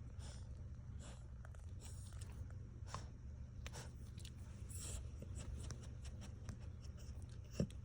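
A dog's claws clicking faintly and irregularly on a hard floor as it walks, over a low steady hum, with a soft thump near the end.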